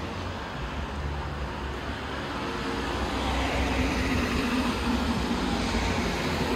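Street traffic, with a vehicle's engine and tyre noise growing louder through the second half as it approaches.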